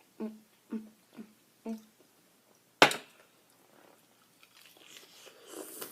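Close-up chewing of crispy fried chicken, short mouth sounds about twice a second. About three seconds in comes one loud, sharp crack, the loudest sound here. Softer crackly crunching and rustling follows near the end.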